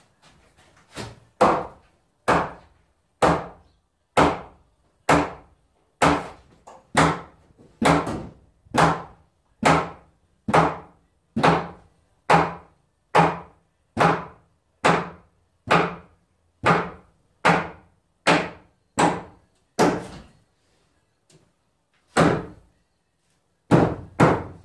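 Hammer driving nails into wooden framing: strong, sharp strikes at about one a second, with a short break a few seconds before the end and then a few more blows.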